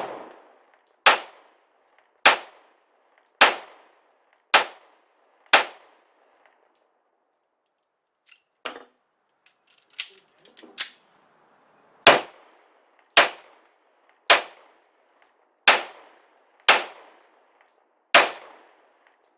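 Ruger LC9 9mm pistol, fitted with a stainless guide rod and 20 lb recoil spring, fired in slow strings of about one shot a second: five shots, a pause with three fainter reports, then six more shots.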